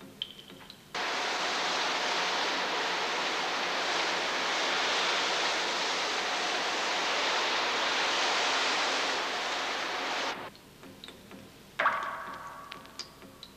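Steady loud roar of industrial machinery, a large ore-grinding mill running in a processing plant, starting abruptly about a second in and cutting off sharply near ten seconds. A little before the end, a single sharp knock rings on and fades.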